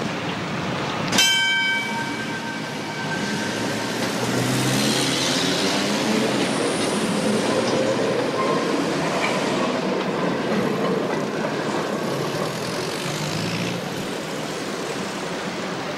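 A tram bell strikes once about a second in and rings briefly, then a tram and cars run past in steady street traffic.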